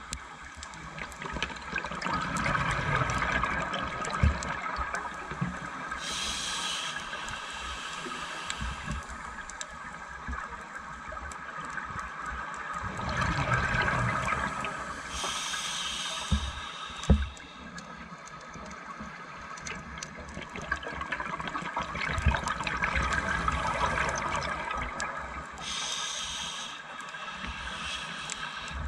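Scuba regulator breathing underwater: each exhale is a few seconds of bubbling gurgle, followed by a short hiss of inhalation through the regulator, repeating slowly about every nine to ten seconds, three times. A few sharp clicks are heard, the loudest about two thirds of the way through.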